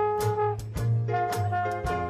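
Dixieland jazz band playing a blues: brass horns holding long notes over a bass line and a steady beat of sharp strokes, the lead note changing about a second in.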